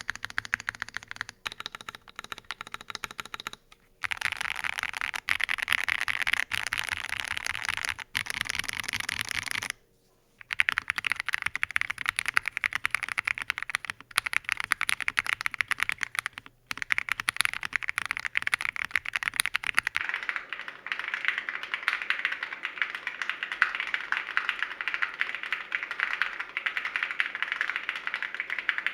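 Fast continuous typing on an Akko ACR Pro Alice Plus mechanical keyboard with lubed Akko CS Clear switches and ASA keycaps on a modded polycarbonate plate. It stops briefly about four seconds in. After another short break about ten seconds in, the typing resumes with a PE foam sheet added to the build.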